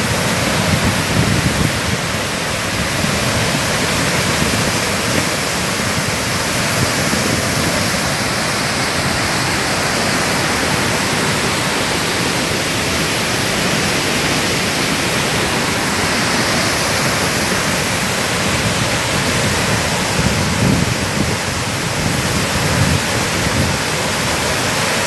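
Water rushing through a dam's open spillway gates and crashing down the spillway: a loud, steady rush of noise, the sound of a flood release from the reservoir.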